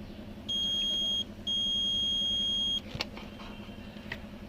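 Multimeter buzzer beeping twice, a short steady high tone and then a longer one, sounding because supply voltage is present at the mirror connector pin being probed. A sharp click follows.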